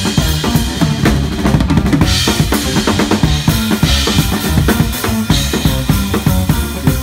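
Drum kit solo: fast, dense strokes on snare, toms and bass drum, with cymbal crashes about two, four and five seconds in.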